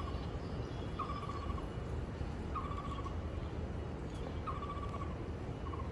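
A bird calling over and over, one short trilled note repeated four times, roughly every one and a half to two seconds, over a steady low outdoor rumble.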